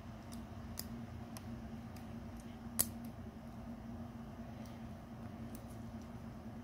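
Faint, scattered metallic clicks of a lock pick and tension wrench working the pin tumblers of a laminated Master Lock padlock, with one sharper click about three seconds in. A steady low hum runs underneath.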